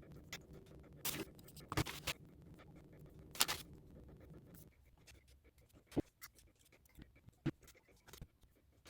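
Scattered scrapes and sharp knocks of hands and tools working a mortar-and-clay sculpture, over a low steady hum that stops about halfway through.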